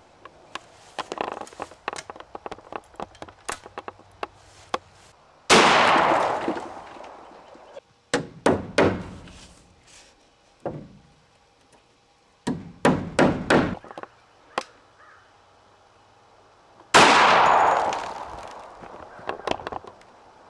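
Hammer blows on a wooden barn wall, coming in quick runs, and two 12-gauge shotgun blasts, about five seconds in and about seventeen seconds in, each with a long echoing tail.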